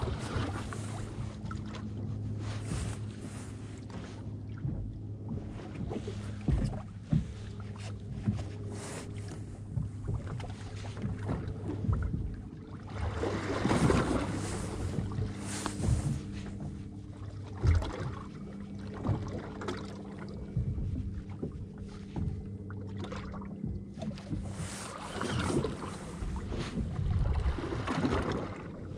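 Suzuki outboard motor idling with a steady low hum, scattered light knocks, and two louder rushes of noise, one about halfway through and one near the end.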